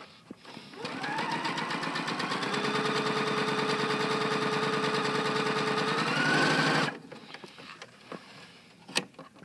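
Pfaff Quilt Ambition 2.0 sewing machine stitching a seam in stretchy fabric with its IDT dual feed engaged. The motor speeds up about a second in, runs at a steady fast rate with rapid needle strokes, rises a little near the end, then stops abruptly.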